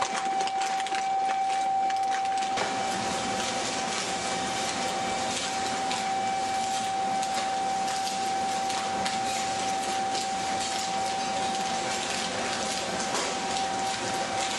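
POSS PDE 250 mechanical meat separator running steadily while processing chicken. It gives a constant high hum over a dense crackling noise, which fills out slightly in the low end about two seconds in.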